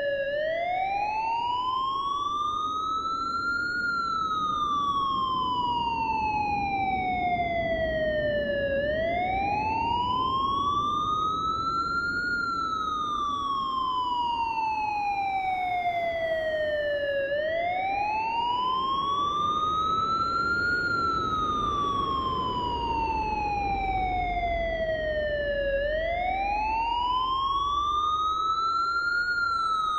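Siren wailing in a slow, repeating rise and fall: the pitch climbs for about four seconds, then sinks for about five, repeating about every eight and a half seconds over a steady low noise.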